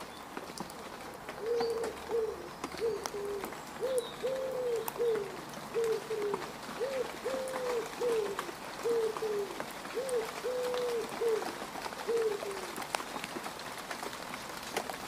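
Rain falling on mud, a steady patter with scattered drip clicks. Over it a dove coos, repeating a low phrase of short and drawn-out notes from about a second in until near the end.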